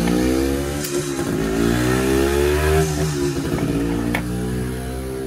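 A motor vehicle's engine running past, its pitch slowly rising and then falling away. Two short clicks, about a second in and about four seconds in.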